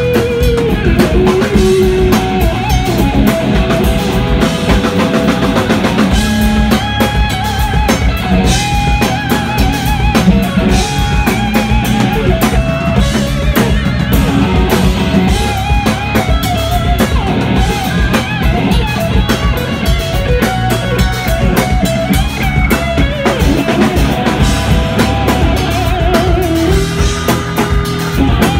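Live rock band playing loud: an electric guitar lead with bent, wavering held notes over a drum kit and bass.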